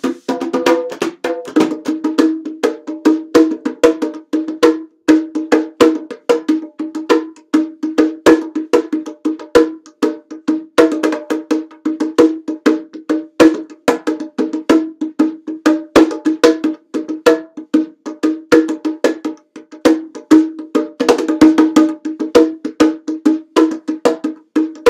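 A pair of bongos played fast with bare hands: a steady, unbroken run of sharp, ringing strokes, several a second.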